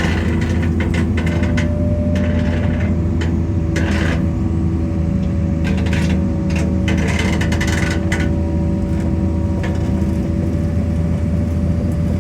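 Engine of a heavy machine running steadily under load while it pulls the dead wheel loader up the trailer ramp on a chain, with short irregular scraping and clanking noises over it.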